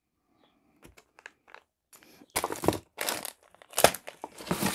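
Plastic packaging and candy wrappers crinkling and rustling as hands rummage through a cardboard parcel box: a few light clicks at first, then louder bursts of crinkling from about halfway.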